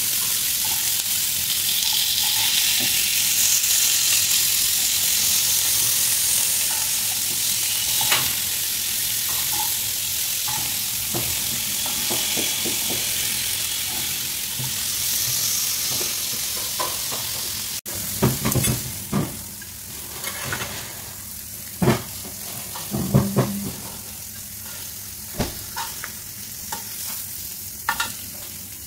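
Boiled eggs and tomato slices sizzling in oil in a frying pan, with a knife scraping as they are turned. About two-thirds of the way through the sizzle drops, and scattered clicks and knocks of a utensil against the pan follow.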